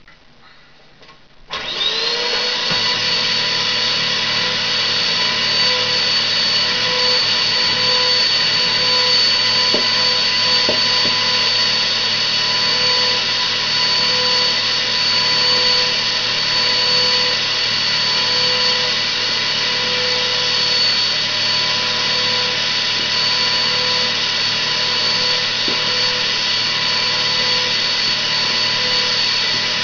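Vacuum cleaner switched on about a second and a half in. Its motor spins up with a short rising whine, then runs steadily at a constant high whine.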